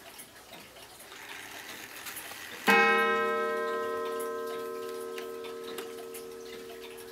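An antique Ansonia 8-day oak mantel clock strikes a single blow about two and a half seconds in, set off as its minute hand is turned past the half hour. The blow rings with many tones and dies away slowly. Faint ticking and small clicks from the clock's hands being turned come before it.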